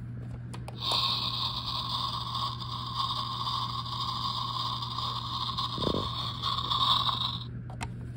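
A steady buzzing noise starts about a second in and cuts off near the end, lasting about seven seconds, over a constant low hum.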